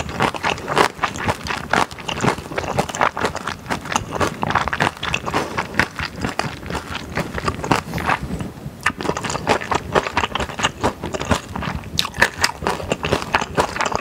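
Close-miked chewing of stir-fried thick glass noodles and beef brisket: wet, sticky mouth sounds with many small irregular clicks. There is a short lull about nine seconds in.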